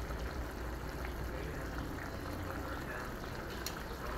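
Coconut-milk sauce bubbling at a simmer in a wok of fish, a steady sputtering with a low hum underneath.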